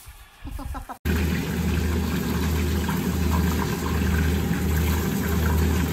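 After a quiet first second, a frying pan of salmon sizzles steadily in hot oil over a constant low hum.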